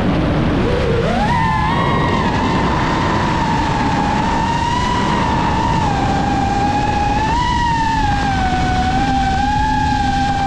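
FPV freestyle quadcopter's brushless motors whining. The pitch climbs sharply about a second in as the throttle is punched, then holds high and wavers up and down with throttle changes, over a steady rushing noise.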